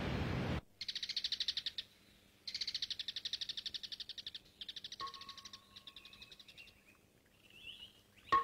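Forest ambience of songbirds giving rapid, evenly pulsed high trills in several runs of a second or two each. A rushing waterfall cuts off abruptly just after the start. A clear steady tone comes in about five seconds in, and there is a sharp ping near the end.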